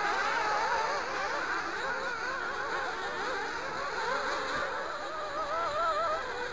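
Several nitro RC buggy engines run at high revs together, their overlapping whines rising and falling in pitch as the buggies accelerate and back off around the track. One engine stands out a little louder shortly before the end.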